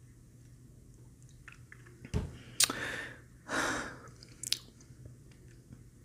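Mouth sounds after a sip through a straw: a low thump about two seconds in, then a few sharp lip smacks and a short breathy rush.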